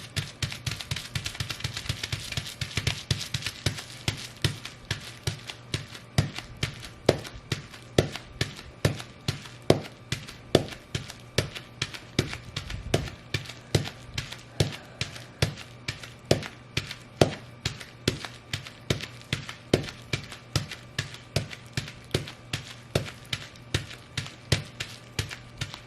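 Fur-covered boots stomping on bubble wrap in a steady rhythm of about two stomps a second, with a burst of dense crackling pops in the first few seconds.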